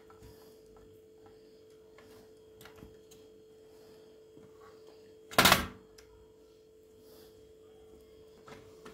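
Handling noises from the dishwasher repair: a few faint clicks over a steady faint hum, then one loud clunk, less than half a second long, about five and a half seconds in.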